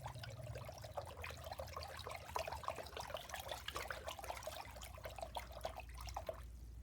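Water being stirred round in a large bowl: faint, light sloshing and trickling made of many small splashes, which stops shortly before the end.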